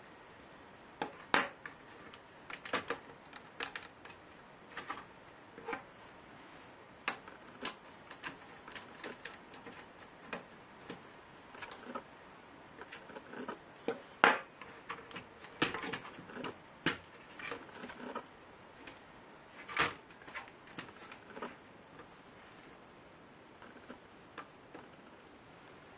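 Irregular clicks, taps and light knocks of laptop plastic parts, screws and small tools being handled during disassembly of a Lenovo Y570, with the sharpest knocks about halfway through and a brief lull near the end.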